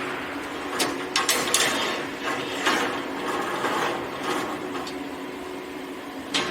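Rebar cage welding machine running: a steady mechanical hum with a few sharp metallic clicks and knocks at irregular intervals.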